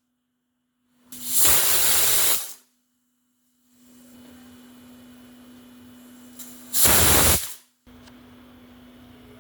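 Hawkins pressure cooker whistling: steam bursts out past the lifted weight in a loud hiss, about a second and a half long, then again more briefly near the end. A faint steady hiss runs between the two.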